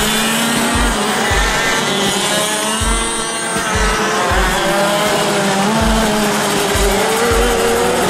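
Music with a steady drum beat, over the running engine of a kart driving on the track.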